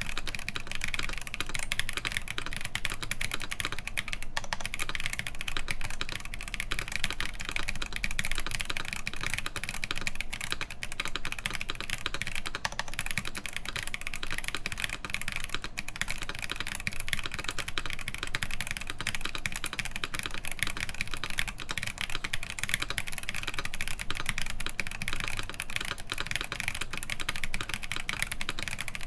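Continuous fast typing on a mechanical keyboard with stock Holy Panda tactile switches, an aluminum plate and GMK keycaps: a steady, dense stream of key clacks.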